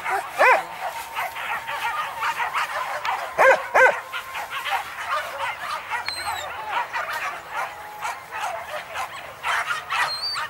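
A pack of boar-hunting dogs yelping and barking over one another, with louder drawn-out yelps about half a second in and twice around three and a half seconds in.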